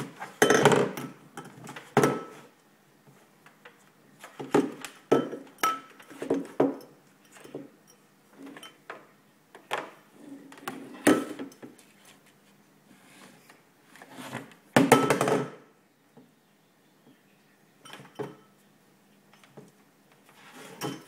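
Empty drinking glass knocking, clinking and sliding on a desk as a Bengal kitten paws at it and pushes its head inside. Irregular clatters with quiet gaps, loudest about half a second in and again around fifteen seconds in.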